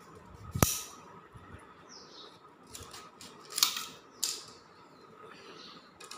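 A knife chopping and trimming hollow papaya leaf stalks: a few sharp cracks as the blade cuts through. The loudest comes about half a second in, and two more follow around three and a half and four seconds in.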